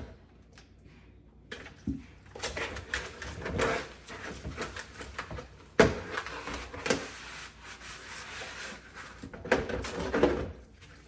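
Irregular clattering and scrubbing of a kitchen sink and basin being washed out with bleach, with a sharp knock about six seconds in.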